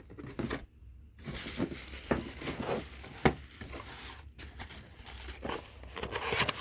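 Packaging crinkling and rustling as new car battery cables are handled and unpacked, with scattered sharp clicks and taps from the cables and their terminals. The handling stops briefly about a second in.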